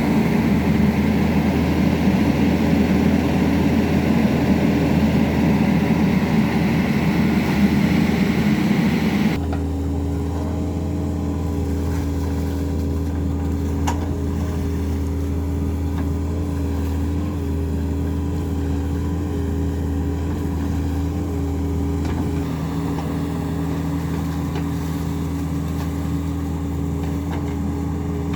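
Excavator diesel engine running steadily. About nine seconds in, the sound changes abruptly to a slightly quieter, steadier hum.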